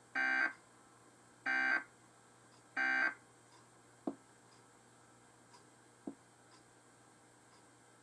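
Emergency Alert System end-of-message signal: three short, buzzy digital data bursts about 1.3 seconds apart, marking the end of the alert. Two faint clicks follow later.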